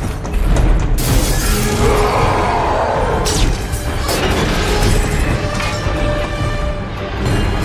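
Action-film soundtrack: dramatic music under heavy crashes and glass shattering, with sharp impacts about a second in and again around three to four seconds in.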